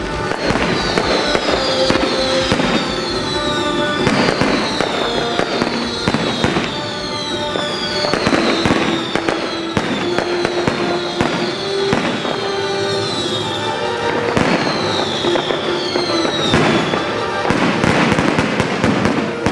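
Fireworks display: a continuous stream of bangs and crackling bursts, with music playing throughout.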